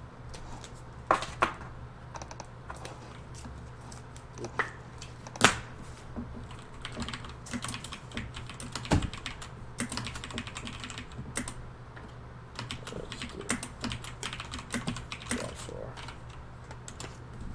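Typing on a computer keyboard: irregular clicks and taps, a few sharper strokes standing out, over a steady low electrical hum.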